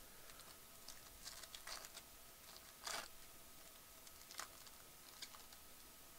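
Faint rustling and crinkling of a trading-card pack and its cards being handled by gloved hands: a few soft, short scratchy sounds, the loudest about three seconds in.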